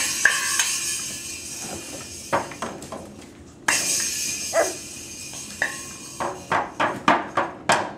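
A small cymbal on a child's toy drum kit struck with a drumstick, crashing and ringing on. There are two single crashes with long rings, then near the end a quick run of about two to three hits a second on the cymbal and drums.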